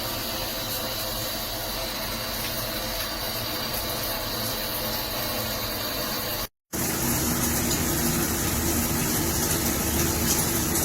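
Shower running, water spraying steadily. It cuts off briefly about six and a half seconds in, then resumes a little louder and hissier.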